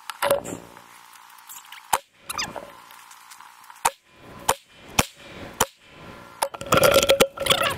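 AR-15 rifle shots at steel spinner targets: single shots spaced roughly half a second to a second and a half apart, several followed by a brief metallic ring. A busier run of sharp hits and ringing starts near the end.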